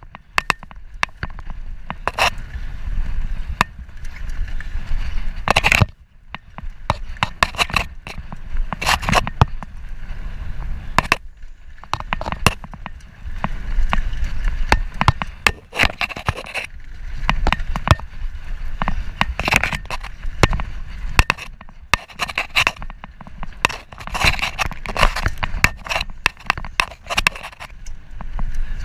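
Mountain bike riding fast down a dirt singletrack: tyres scraping and crunching over dirt and roots, with frequent irregular sharp knocks and rattles from the bike, over a constant low rumble of wind on the microphone.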